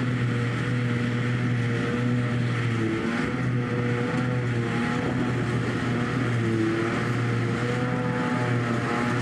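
Claas Jaguar 900 self-propelled forage harvester running under load as it chops grass, together with a Fendt 828 Vario tractor pulling the forage wagon alongside. It is a steady engine drone over a constant rushing noise.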